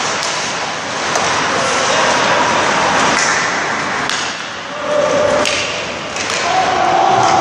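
Ice hockey on-ice session: steady scraping of skate blades on ice, broken by scattered sharp clacks of sticks and pucks, with players' voices calling out, the strongest near the end.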